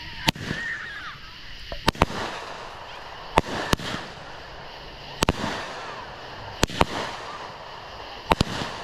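A 25-shot, 200-gram consumer firework cake firing vertical shots that break into brocade stars. Sharp reports come about every second and a half, several in close pairs, with a steady hiss between them.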